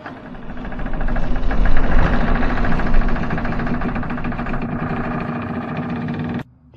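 Intro sound effect: a loud, steady rumble with a constant low hum that fades in over the first second or so and cuts off suddenly near the end.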